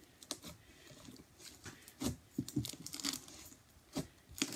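Gel-glue slime packed with shredded foam being kneaded and squeezed by hand: faint, irregular crackling and popping, with a few louder squelches about two and four seconds in.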